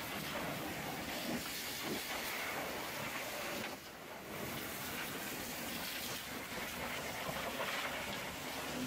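Hot-water pressure washer lance spraying a steady jet onto a semi truck's greasy metal fuel tank and chassis, dipping briefly about four seconds in.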